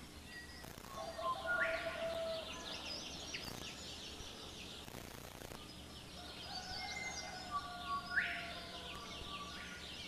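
Several birds calling over a steady background of forest ambience: short chirps and whistled notes, with a rising sweeping call about a second and a half in and again about eight seconds in.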